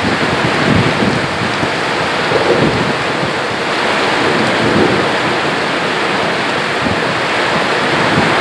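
Heavy rain pouring in a windy storm, a steady dense hiss with uneven gusts of wind buffeting underneath.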